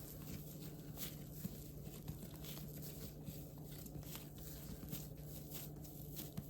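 Quiet room tone: a low steady hum with faint, scattered small clicks and taps.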